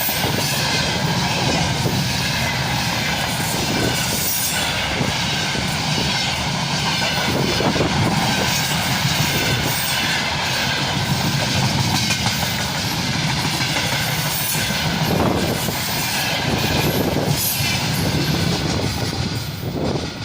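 Freight train wagons rolling past at about 80 km/h, a steady loud rumble with repeated clattering of wheels over the rail joints.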